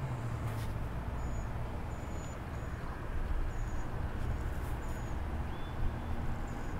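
Steady low hum and rumble of rooftop background noise, with several faint, very high, short chirps scattered through it.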